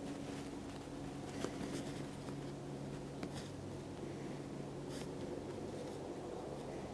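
Distant Kawasaki BK117 C-1 helicopter hovering: a steady low drone with a few level hum tones. A few faint clicks and scratches sit over it, the strongest about a second and a half in.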